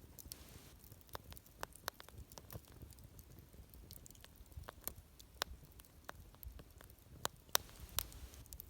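Wood campfire crackling, with sharp irregular pops and snaps, a few louder ones about seven and a half seconds in.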